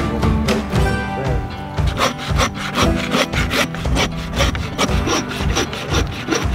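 A saw cutting through a hanging hog carcass's backbone to split it into halves, in quick, even back-and-forth strokes, with background music underneath.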